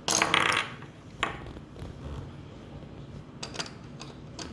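Plastic Lego pieces and a built Lego figure being handled on a table: a short clatter at the start, then a few light clicks and knocks.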